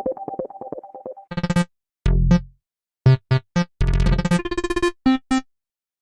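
Phone ringtone and alert sounds played back to back: a fast repeating two-note synth ringtone fades out, then a string of short electronic notification tones follows, a brief chirp, a falling tone, three quick beeps, a longer chime and two short notes.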